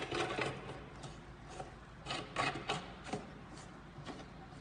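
Screen clamp knob on a manual screen printing press being screwed tight, giving short scraping, rasping sounds of the threaded clamp, grouped near the start and again about two to three seconds in.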